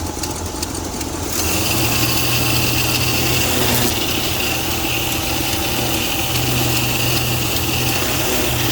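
Craftsman pressure washer running with a steady motor hum; about a second and a half in, the hiss of the water spray starts and carries on.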